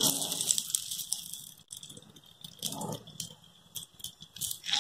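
Ghee sizzling and crackling around nei appam frying in a paniyaram pan, with light scraping and tapping as a skewer turns the appams over in their wells.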